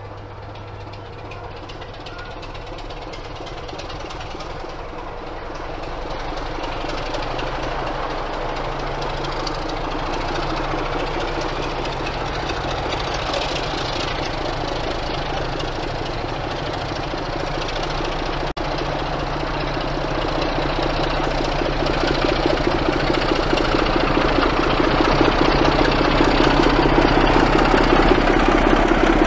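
Diesel locomotive engine running steadily, growing gradually louder, with a low hum under a rough mechanical clatter.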